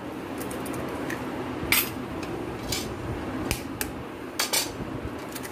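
Eggs cracked against the rim of a glass bowl: a handful of short, sharp taps of shell on glass, the loudest one about two seconds in and a quick cluster of taps nearer the end.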